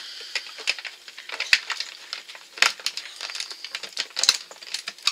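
A small cardboard advent calendar being handled as a numbered door is opened and a mini nail polish bottle taken out: crinkling and rustling of card with small sharp clicks, a few of them louder.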